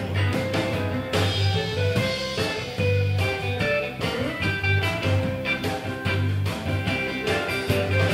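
Live rock and roll band playing an instrumental break: electric guitar taking the lead over electric bass and a drum kit.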